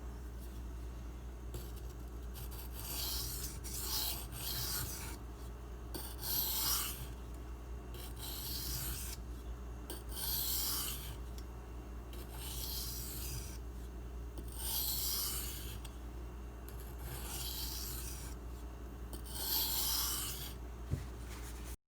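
M390 steel knife blade being drawn across a whetstone in repeated scraping strokes, about one every two seconds, during edge sharpening with a burr already raised. The sound cuts off suddenly at the end.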